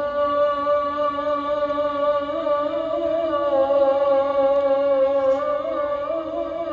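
A single unaccompanied voice chanting a slow melody of long held notes that waver and glide in pitch.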